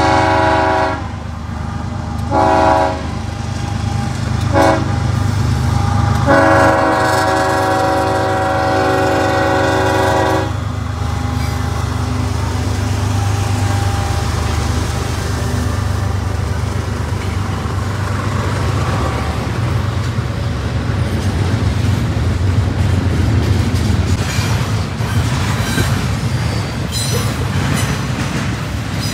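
Diesel freight locomotive's multi-chime air horn blowing four blasts, the last held about four seconds: the long-long-short-long grade-crossing signal. After it, the locomotive's engine rumbles and a double-stack intermodal train's cars roll past with a steady rolling noise.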